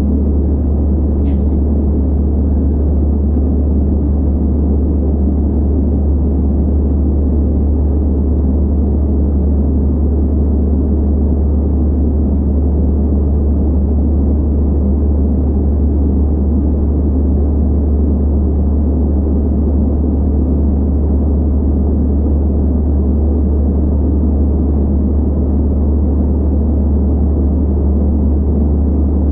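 Steady cabin noise of an Airbus A320-216 in flight, heard from a window seat by the wing: engine and airflow rushing over a strong, constant low hum.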